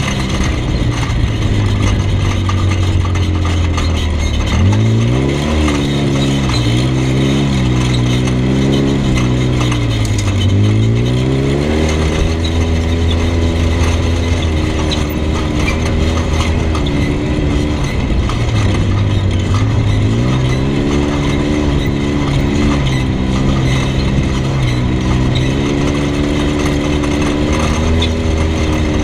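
Off-road vehicle's engine running under way on a dirt trail, its pitch climbing and dropping several times as the throttle and speed change.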